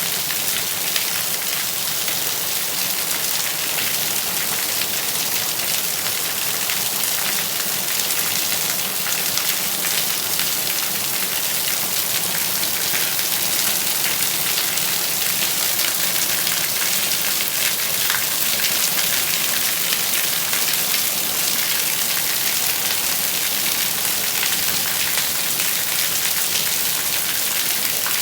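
Steady rain falling on a surface, a dense even hiss with many small drop patters.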